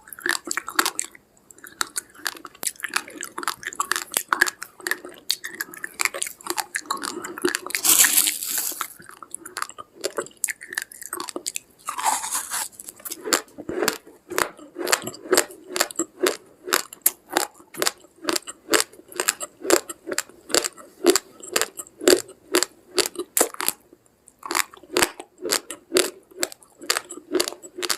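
Raw rice grains being chewed, with crisp, rapid crunching settling into a steady rhythm of about two to three crunches a second. Two short hissy rustles come in partway through.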